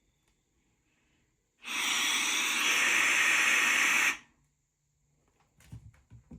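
A steady rush of air, loud and even, starting suddenly about a second and a half in and cutting off sharply some two and a half seconds later.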